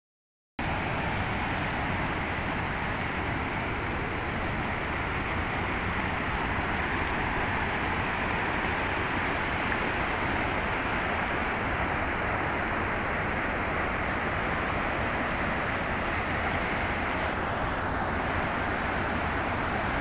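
Steady rushing of a rocky mountain stream, white water tumbling over boulders and small cascades.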